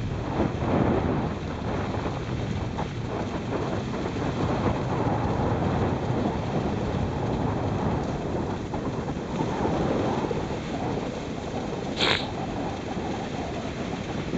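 Dog sled gliding over packed snow behind a running team: a steady rushing and scraping of the runners with wind on the microphone. One short, sharp sound cuts through about twelve seconds in.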